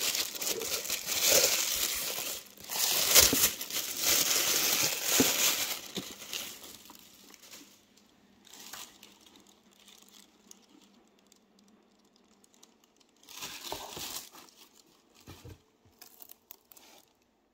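Tissue paper wrapping crinkling and rustling as it is pulled off and unwrapped by hand. It is loud for about the first six seconds, then turns to quieter handling, with a short burst of rustling about three quarters of the way through.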